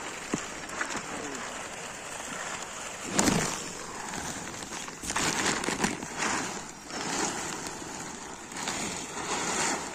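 Plastic tarpaulin rustling and crackling in repeated irregular bursts as it is dragged and spread over heaps of paddy straw.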